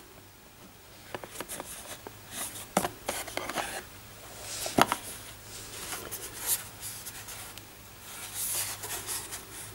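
Handling noise as a Google Home smart speaker is lifted out of its cardboard box and turned in the hand: soft rubbing and scraping of the speaker's shell against the box, with a few light knocks.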